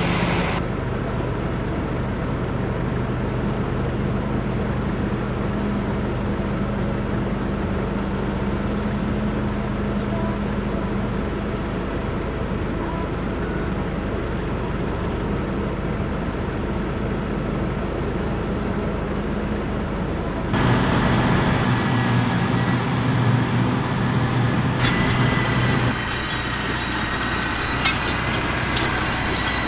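Heavy diesel farm machinery engines running steadily during grain harvest. About two-thirds of the way through the sound switches abruptly to a louder, rougher engine, and it changes again a few seconds later.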